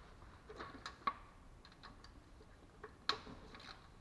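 Faint, irregular light clicks of a socket wrench and loose nuts being handled while the intake manifold nuts are undone, the sharpest about one and three seconds in.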